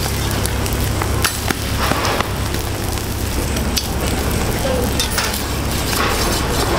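Egg omelets sizzling on a steel flat-top griddle while a metal spatula scrapes along the plate and knocks against it as it lifts them, giving scattered sharp clicks over the steady sizzle. A steady low hum runs underneath.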